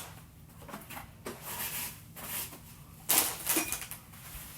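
Household cleaning noises as a mini fridge is wiped down with Lysol: scattered rustling and wiping sounds, with one short, louder rush of hiss about three seconds in.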